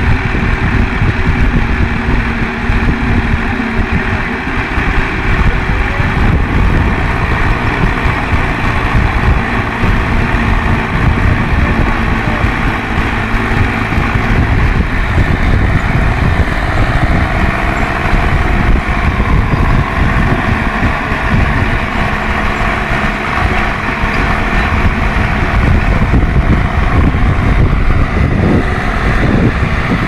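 Two diesel tractor engines, a Mahindra 275 and a Massey Ferguson, running hard and steady under heavy load in a tug of war, their rear tyres spinning and throwing dirt.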